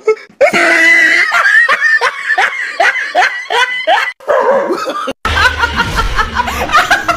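A person laughing hard in a quick run of short laughs that each fall in pitch. After a break about five seconds in, more laughing continues over a low hum.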